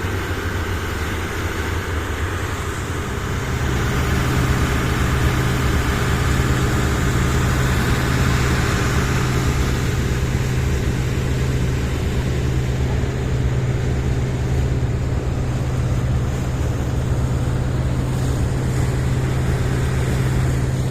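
Boat engine running steadily under way, a constant low drone under a steady hiss; it grows louder about three seconds in and then holds.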